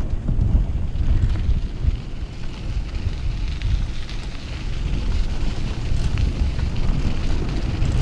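Wind buffeting the microphone in a fluctuating low rumble as a mountain bike rolls along a dirt trail, with fainter tyre hiss and a few small ticks from the ground.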